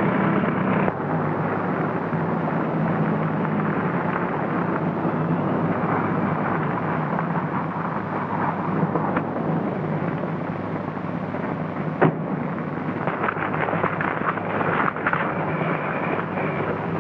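Steady outdoor rumble of a car engine running, with a faint steady hum under it. A single sharp knock comes about twelve seconds in, followed by scattered footsteps near the end.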